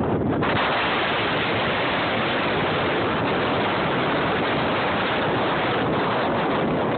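Strong wind buffeting the microphone: a loud, steady rushing noise with no clear engine or motor tone above it.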